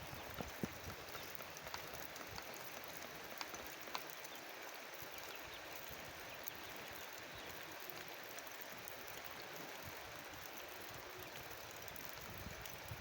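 Steady rain, an even patter with scattered single drops ticking sharply, more of them in the first few seconds.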